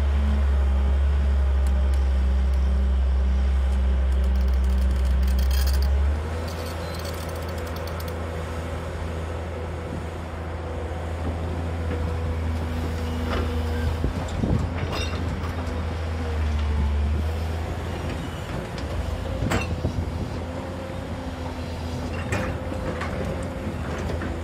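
JCB tracked excavator's diesel engine working under load as it digs and swings a bucket of soil, loud and steady for about the first six seconds, then dropping to a lower running drone. A few sharp knocks and clanks come in the second half as the bucket works.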